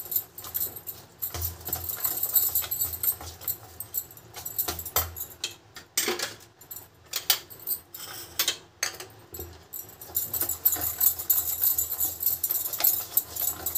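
A wire whisk stirring thick semolina batter in a stainless steel bowl: quick metal clicks and scraping against the bowl. The stirring pauses for a few seconds in the middle, then picks up again.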